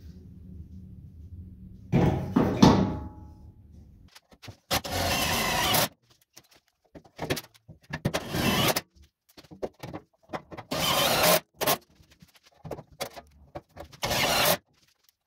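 Power drill driving screws into sheet metal in repeated short bursts of about a second each, with gaps between them. Before the bursts there is a steady hum, and about two seconds in a loud clatter.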